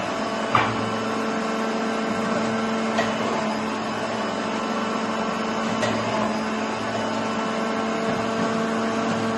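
Preethi Zion mixer grinder running steadily at speed 1 with its onion-slicing attachment, the motor giving a steady hum. There is a sharp knock about half a second in and fainter clicks around three and six seconds.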